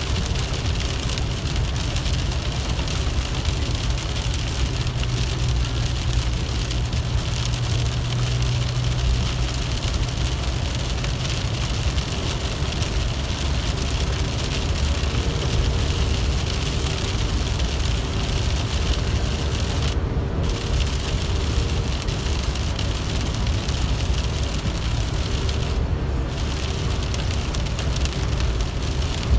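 Steady in-cabin driving noise in heavy rain: rain hitting the windshield and roof over a low engine hum and the hiss of tyres on a wet highway.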